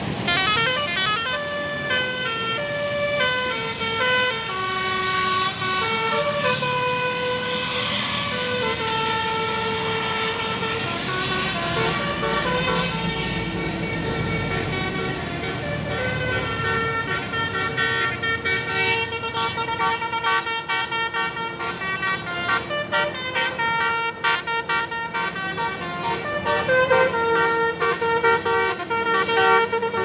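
Basuri telolet horn on a Tunggal Jaya tour coach playing a long melody: loud held notes that step up and down in pitch, several sounding together, without a break.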